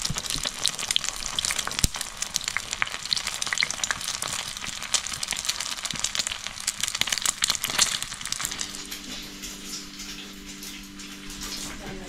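Food frying in hot oil in a pan: a dense sizzling crackle of tiny pops that thins out and quietens after about eight seconds.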